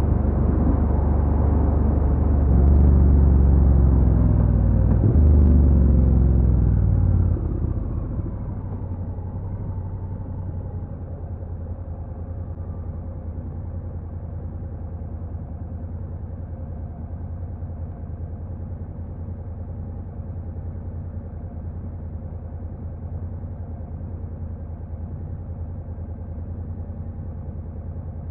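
Stock Honda NC750X's parallel-twin engine accelerating, with a gear change about five seconds in; around seven seconds the throttle closes, the revs fall away, and it settles into a steady idle.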